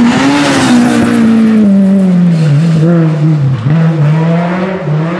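Rally car passing close at speed, loud at first, its engine note falling steadily as it drives away.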